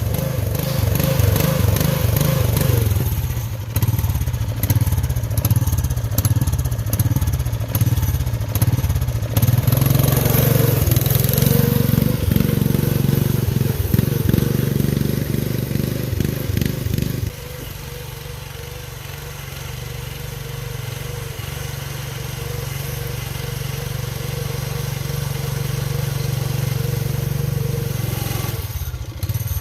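Lawn tractor engine running under way as the tractor is driven on its newly fitted tire chains. The engine rises in pitch briefly a little before halfway, and its sound drops to a lower, steady level about two-thirds of the way through.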